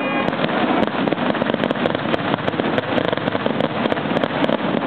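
Fireworks finale: a dense, rapid barrage of bangs and crackling with no gaps.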